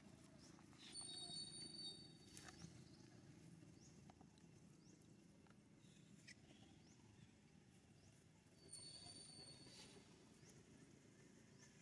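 Faint outdoor quiet with scattered light clicks and rustles of dry leaf litter as macaques shift and move about, broken by two brief high, steady whistle-like tones, one about a second in and one about nine seconds in.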